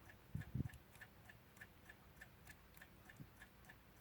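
Faint, steady ticking of a mechanical clock, about four ticks a second, with a couple of soft handling thumps about half a second in and a lighter one near the end.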